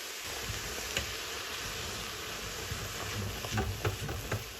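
Vegetables sauteing in a soup pot, a steady sizzle, with a spoon stirring and knocking against the pot in short clicks and scrapes that come more often near the end.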